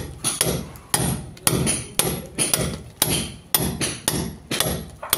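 Club hammer striking a chisel held against a brick wall, about two blows a second, each strike ringing briefly: the chisel is cutting a channel in the brickwork for electrical wiring.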